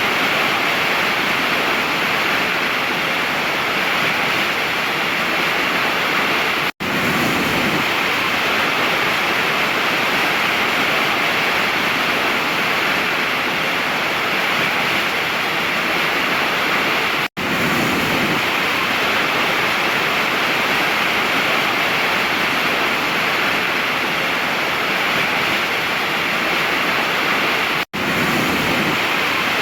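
Waterfall rushing steadily. The sound cuts out for a split second three times, about ten seconds apart.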